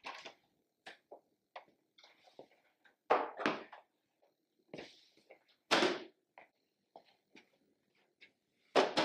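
Household handling noises: an apartment door being opened and shut and hard plastic storage containers knocking together as they are carried, a string of separate knocks and clatters with the loudest about three and six seconds in.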